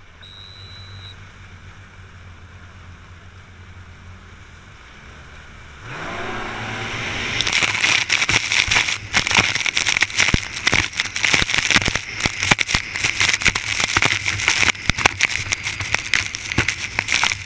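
Racing jet ski engine idling with a steady low hum, then revving up about six seconds in as it launches from the start line. From there the engine at full throttle is buried under a loud, dense clatter of spray and water slapping the hull and the mounted camera. A short high beep sounds at the very start.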